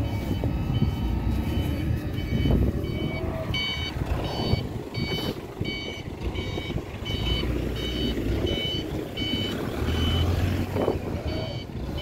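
A reversing alarm beeping in a steady rhythm, about three beeps every two seconds, louder from about three and a half seconds in, over a truck engine running.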